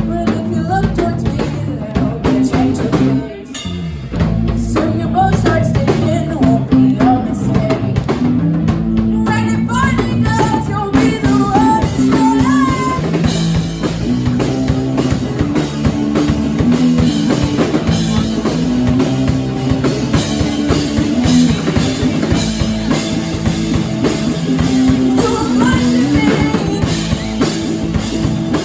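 Rock band playing live with drum kit, bass and guitar, a singer's voice coming in over the band partway through.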